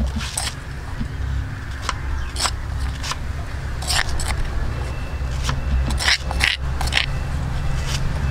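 Spoon scraping pounded curry paste out of a stone mortar and onto a metal tray, with scattered scrapes and light clinks over a steady low hum.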